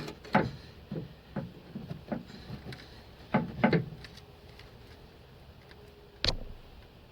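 Scattered knocks and clunks of metal as a car's new front lower suspension arm is worked into its mounting, ending in one sharp hammer tap about six seconds in.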